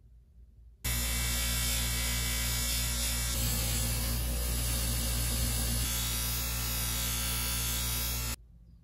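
Bench grinder's electric motor running with a steady hum, starting abruptly about a second in and cutting off shortly before the end. In the middle the sound roughens as the drill's steel spindle and pinion gear are pressed against the wheel to polish them.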